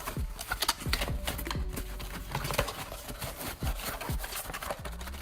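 Bubble wrap and packing being handled, with dense, irregular crinkling and crackling clicks.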